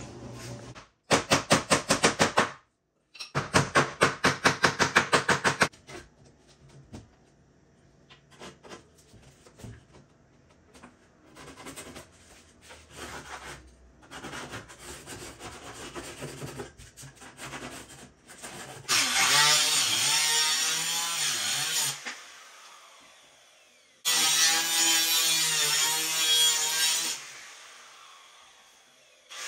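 Handheld electric circular saw cutting a wooden formwork board in two loud cuts of about three seconds each, its motor pitch sagging under load and then winding down after each cut. Before that come two spells of fast rhythmic rasping strokes, then light knocks as boards are handled.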